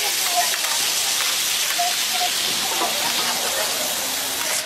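Kielbasa sausages and onions sizzling on a large round griddle pan, a steady hiss of frying fat.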